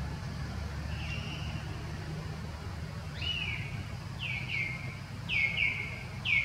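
A bird calling: a single held whistle and a rising-then-falling note, then repeated pairs of short, sharply falling notes about once a second. A low steady rumble runs underneath.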